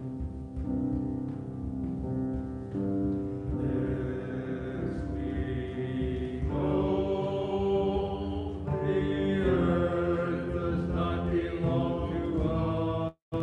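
Recorded choir singing a slow anthem, the voices holding long notes and growing fuller and louder about six seconds in. The sound cuts out for an instant near the end.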